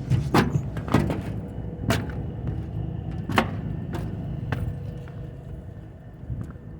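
EMD SD70ACe's 16-cylinder two-stroke 710 diesel being cranked by its air starter without firing: a low rumble with uneven thumps that fades and slows off. It fails to start, which the owner puts down to the electric fuel pump not running.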